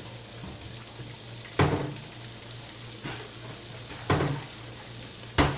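Pork chops frying in a skillet with a steady sizzle over a low hum. Three separate knocks or clatters of kitchen things being handled cut in, about one and a half seconds in, about four seconds in and just before the end.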